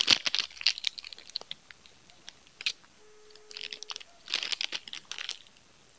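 Plastic snack wrapper crinkling and crackling as it is handled, in several short bursts with quiet gaps between them.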